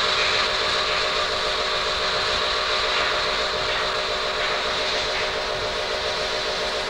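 Loud, steady hiss like escaping steam or air, over a steady machine hum.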